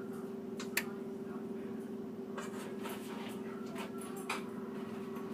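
A few light scrapes and clicks of a kitchen utensil working cookie dough, over a steady low hum.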